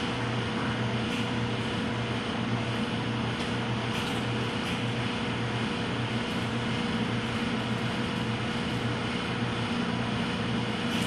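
Powder-coating equipment running steadily: a continuous rush of air with an electric hum underneath, as red powder is sprayed onto a BMX frame.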